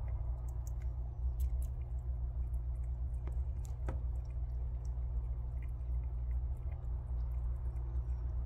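Prairie dog gnawing and chewing on a nut held in its paws: small irregular crunching clicks, over a steady low hum.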